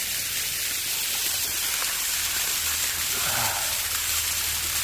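Waterfall running: a steady, even hiss of falling water.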